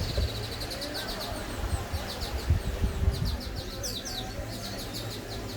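A small bird chirping in quick repeated runs of high notes, over the low rumble of breeze and surf on the microphone, with a few stronger gusts around the middle.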